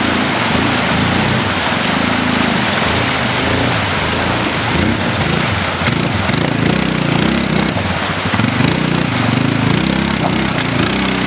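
ATV engine revving up and down as the quad drives through a rushing stream and climbs out onto the rocky bank, over the steady rush and splash of water.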